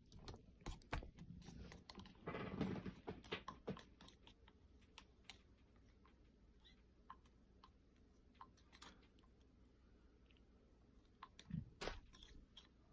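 Faint, scattered small clicks and wet squishes of homemade slime being handled and mixed, with a brief busier patch about two and a half seconds in and a couple of louder clicks near the end.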